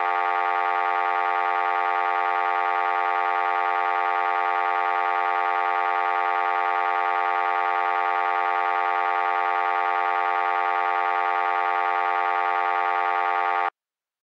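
A steady electronic drone of many held tones at once, never changing in pitch, which cuts off suddenly near the end.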